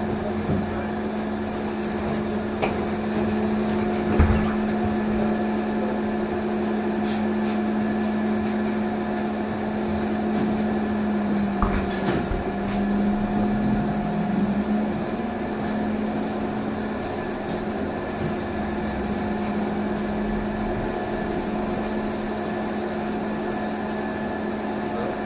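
Trolleybus on the move, heard inside the cabin: a steady electric hum made of several steady tones over road noise, with a few knocks. About halfway through, the hum's pitch dips and glides back up.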